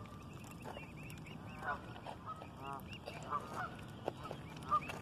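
Mute swan cygnets peeping: many short, soft, arched calls, one after another every half second or so.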